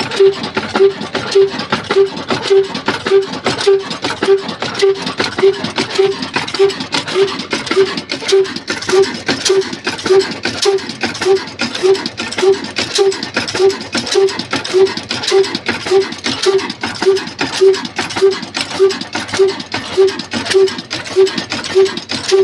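Old black desi single-cylinder slow-speed diesel engine of the Ruston type running steadily at about 275 rpm. It gives an even beat a little over twice a second, with a clicking mechanical clatter between the beats.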